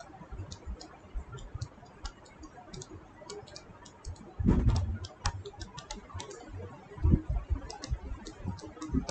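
Light, irregular clicks and taps of a stylus on a tablet screen while drawing by hand, with a brief louder low sound about four and a half seconds in.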